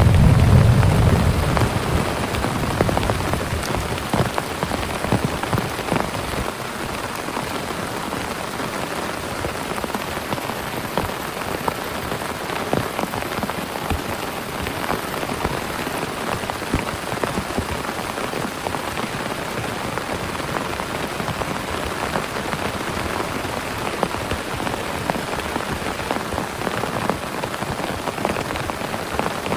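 Heavy rain falling steadily, with many separate drops striking a surface close by. A low rumble of thunder dies away over the first few seconds.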